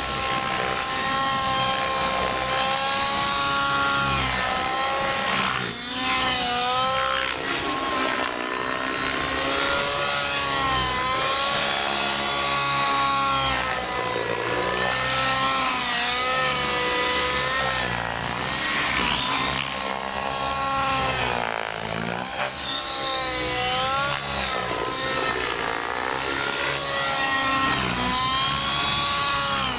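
Align T-REX 700 nitro RC helicopter flying 3D manoeuvres: its two-stroke glow engine and rotor blades make a steady, high whine whose pitch keeps bending up and down as the helicopter loads and turns.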